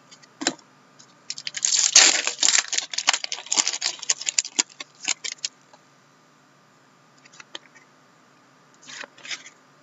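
Crinkling and rustling of plastic as trading cards and a clear plastic card holder are handled. It is loudest about two seconds in and dies away by about five and a half seconds, with a few faint rustles near the end.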